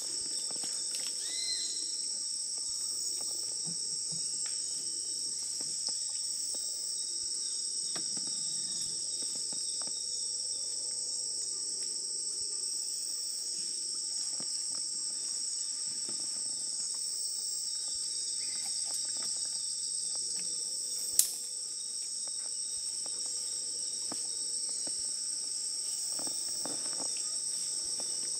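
Steady, high-pitched chorus of Amazonian rainforest insects: a continuous shrill drone in two layered pitches. There is a single sharp knock about three quarters of the way through.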